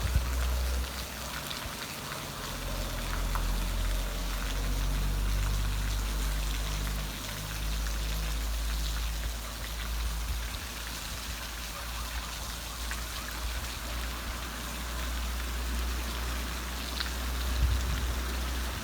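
Rain falling steadily, with scattered individual drops heard over an even hiss and a steady low rumble underneath.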